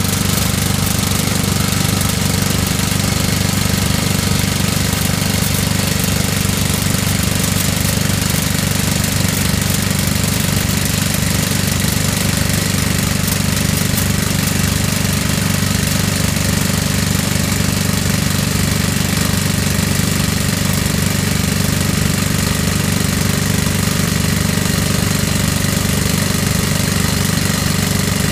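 Word Rock Drills EX 120 excavator-mounted hydraulic rock drill hammering rapidly and steadily as it drills into rock, over the running excavator engine.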